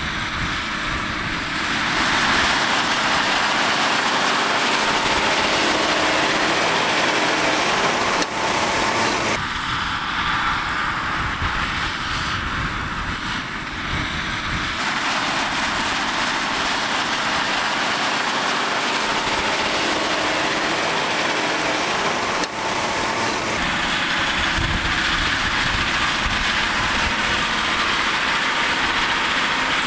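John Deere farm machinery at field work: a heavy diesel engine running under load with a steady rush of working noise. The sound changes abruptly several times, as from one shot of the machines to the next.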